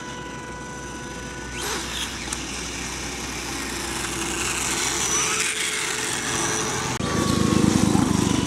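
SkyRC Super Rider SR4 RC motorcycle's electric brushless motor and gyro whining, rising and falling as it is driven, over road traffic. Near the end a real motor scooter passes close by, and its engine rumble is the loudest sound.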